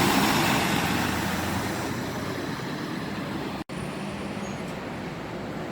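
Road traffic noise: a vehicle passing close at the start and fading away. About two-thirds of the way through an abrupt cut leads to a quieter, steady rumble with a low hum.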